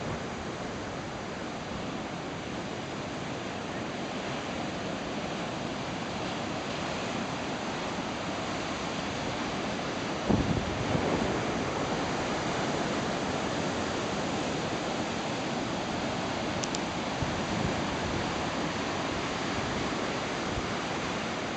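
Ocean surf breaking in a continuous rushing wash, with a louder surge about halfway through.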